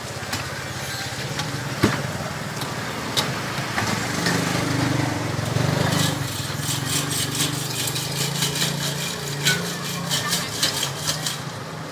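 A metal ladle clinking sharply against a steel pot and plastic cups, over steady street traffic and background voices. From about six seconds in, a quick run of small clicks and rattles.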